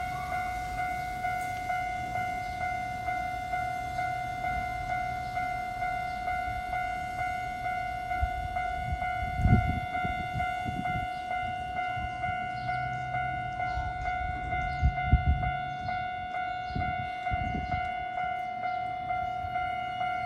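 Japanese railway level-crossing warning bell ringing steadily with a regular, even beat, signalling that a train is approaching. A few low thumps come around the middle and toward the end.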